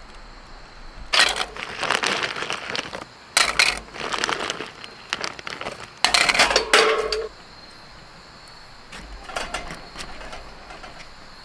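Dishes and utensils clinking and knocking in several short bursts, over crickets chirping steadily in the background.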